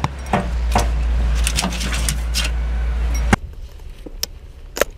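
Scattered knocks and clicks over a steady low rumble, which cuts off abruptly a little over three seconds in, leaving a quieter stretch with two or three sharp clicks.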